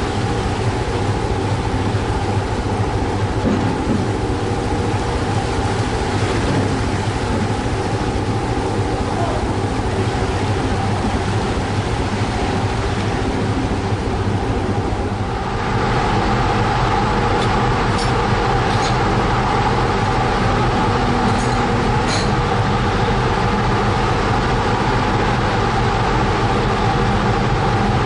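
Steady drone of a stern trawler's engine and deck machinery while the codend is hauled in, with a fast low throb. About halfway through the noise shifts to a louder, brighter running sound.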